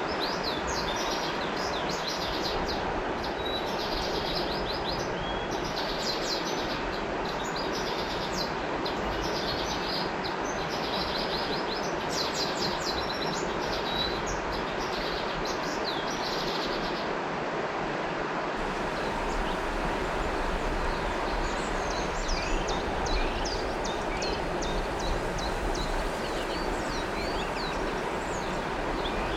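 Steady rush of a flowing river with birds chirping over it in quick repeated trills. Past the halfway point the birdsong changes to scattered, sliding single calls.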